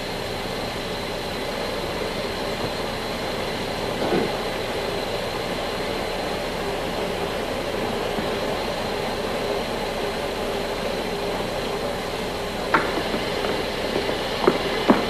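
A row of front-loading washing machines running with a steady mechanical hum. A few sharp knocks come in the last few seconds.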